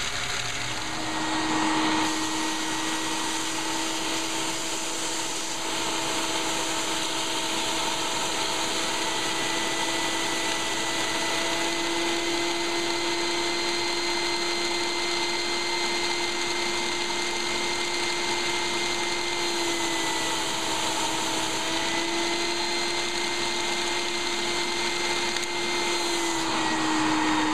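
Shop vac running with a steady whine, its hose held to the intake of a Lego four-cylinder vacuum engine to drive it on suction; the suction is a little too much for the engine. The whine dips slightly in pitch twice and cuts off suddenly at the very end.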